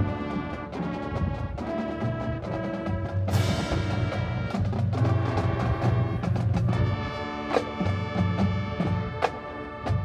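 High school marching band playing: held brass chords over drums and mallet percussion, with several sharp percussion hits, the strongest about three seconds in.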